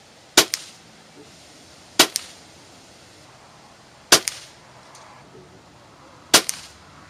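Four shots from a Daisy Powerline 880 multi-pump air rifle, about two seconds apart. Each is a sharp crack followed a split second later by a fainter click.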